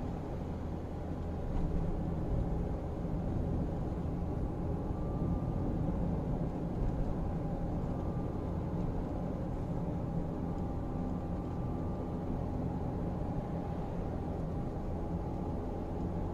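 Steady engine and tyre-on-road noise of a car driving along, heard from inside the cabin.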